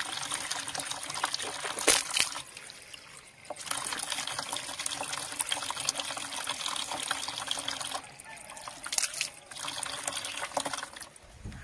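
Water trickling and splashing from a plastic water tank's tap as hands and face are washed under it. The flow is only a slow trickle. The sound drops back briefly twice, with one sharper splash about two seconds in.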